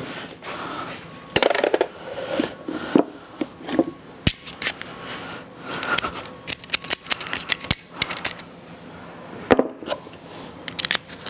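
Metal hand tools and sockets clinking and clicking as they are handled on a shop tool cart, with a quick run of clicks about six to eight seconds in.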